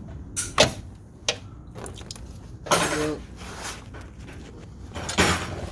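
Metal tools and car parts clinking and knocking as they are handled, with a few short scraping rustles in between.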